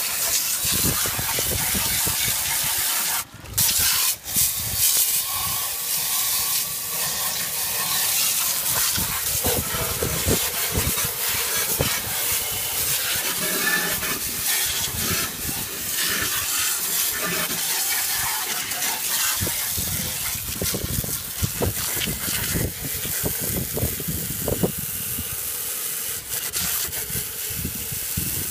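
Water from a hose spraying onto a push lawn mower: a steady hissing spray that breaks off briefly about three seconds in.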